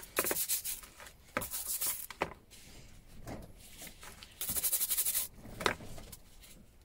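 Stiff-bristled scrub brush scrubbing small rusty wrenches in a bowl of Deox-C rust-remover solution, in two short bursts about two seconds in and again from about four and a half seconds, with a few sharp clicks and knocks in between.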